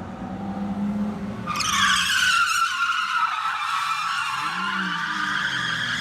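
A drift car's engine running, then about a second and a half in its tyres break into a loud, sustained squeal as the car slides through the course.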